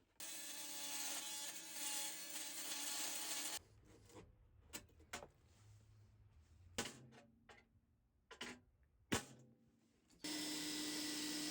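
A power tool running in two steady bursts of about three seconds each, working on a van's seat-base bolt, with knocks and clicks between the bursts.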